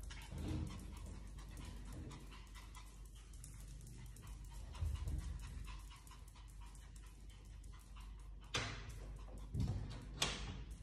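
A small dog panting, with faint ticks of its claws on a wooden floor as it trots about, and a few louder knocks near the end.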